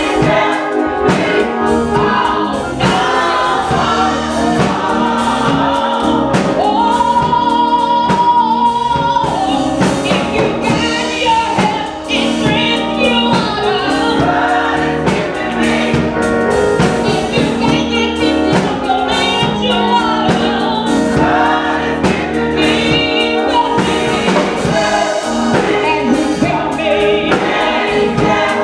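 Gospel choir singing with instrumental backing and a steady beat, with one long held high note about seven seconds in.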